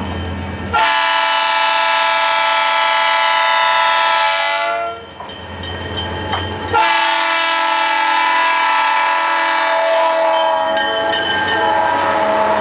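Diesel locomotive air horn sounding two long blasts of about four seconds each, a two-second gap between them, over the engine running. After the second blast the locomotive passes close by, its engine and wheels loud.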